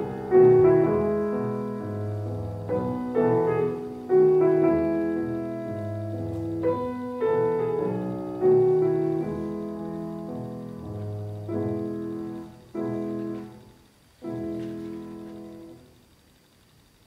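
Grand piano playing slow struck chords that ring and decay, coming further apart toward the end. The last chord, about fourteen seconds in, dies away to near silence: the close of a piece.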